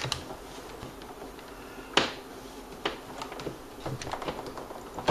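Scattered clicks and light knocks of a power cord and wires being handled and pulled on a workbench, with one sharp click about two seconds in.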